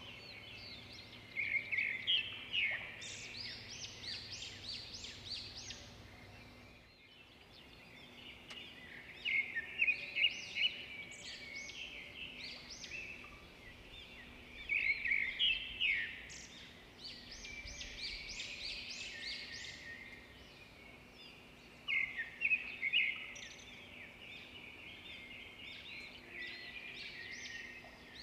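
Wild birds calling in bursts of rapid, high chirping phrases every few seconds, over a faint low steady hum.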